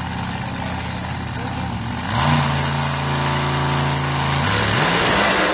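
Drag-racing car's engine running loud, its pitch rising about two seconds in and held steady on a raised rev, then falling back near the end.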